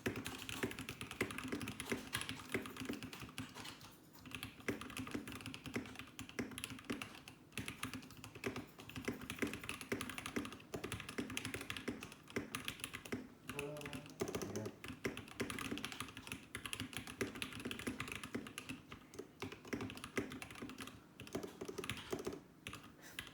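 Continuous fast typing on a custom keyboard: a dense, steady stream of key clicks with only a few short pauses.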